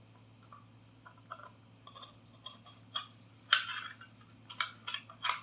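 Clicks, knocks and rustles of a pin spot light and its mounting bracket being handled and fitted together, with a sharper knock about three and a half seconds in and another near the end, over a steady low hum.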